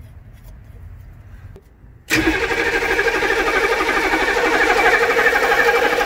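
About two seconds in, the starter of a 1995 military HMMWV's diesel V8 kicks in and cranks the engine over steadily without it firing. The engine turns but won't start because no fuel is reaching it.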